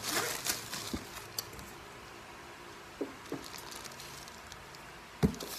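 Plastic packing bags rustling and a metal wire rack clinking as they are handled, with a few light taps and one sharp, louder knock near the end.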